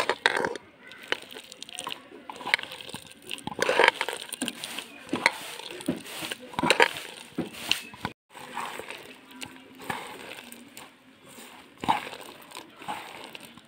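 A bare hand squeezing and kneading mashed ripe jujubes with salt, chilli and sugar in a steel bowl: irregular wet squelching and crunching strokes, with scattered small clicks. It breaks off briefly about eight seconds in.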